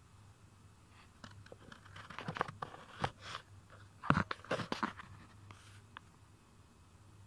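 Scratchy rustling and short clicks, bunched in the middle and loudest about four seconds in, over a faint steady low hum.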